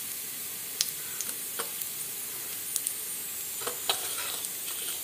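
Hot oil sizzling steadily in an aluminium kadai around dry red chillies and a bay leaf being tempered, with a few small pops.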